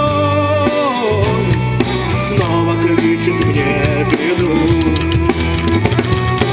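Pop-rock song playing: a sung melody over guitar, bass and drum kit with a steady beat.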